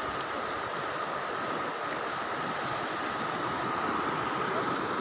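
The fast-flowing, silt-laden Ganges rushing past the bank as a steady wash of water noise. A thin, steady high tone runs underneath it.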